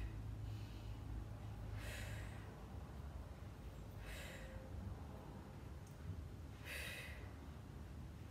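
A woman breathing hard during a set of leg curls, with about four short, audible breaths spaced roughly two seconds apart, in time with the reps.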